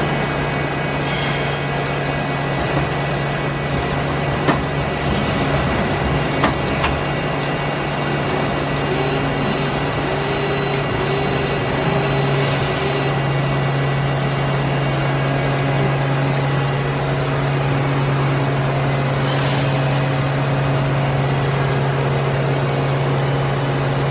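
Akebono Minc-26 CNC gang tool lathe running under power, a steady low machine hum. There are a few short clicks about four to seven seconds in, and the hum grows louder about halfway through.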